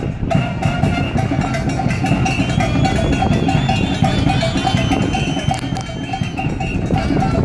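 Salsa-style Latin dance music with a cowbell keeping a steady, evenly repeating beat over the rest of the band.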